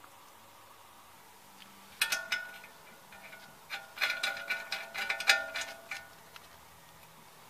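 Metal tools and parts clinking against each other with short ringing tones, in irregular bursts starting about two seconds in and thickest in the middle, as hand work goes on at a car's front lower ball joint.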